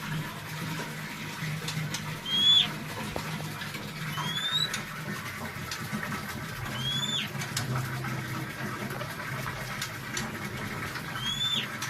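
A caged songbird in moult giving four short, single whistled call notes, each a quick upward-bending whistle, spaced a few seconds apart over a steady low hum.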